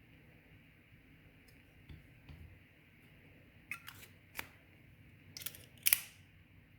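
Small metal tools clicking and tapping on a Zippo lighter's hinge as its barrels are realigned and squeezed tight. There are a few scattered sharp clicks, denser from about the middle on, with the loudest near the end.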